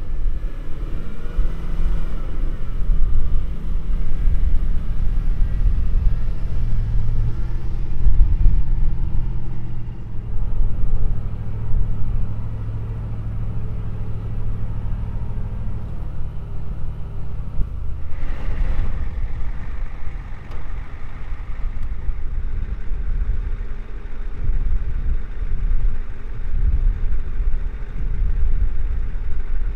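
Pickup trucks driving: a low engine rumble with a steady drone that changes about halfway through, with a brief rushing noise about two-thirds of the way in.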